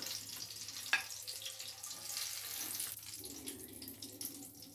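Hot oil sizzling steadily in a frying pan after frying egg-coated eggplant slices (begun vaji), with a sharp click about a second in. The hiss thins toward the end.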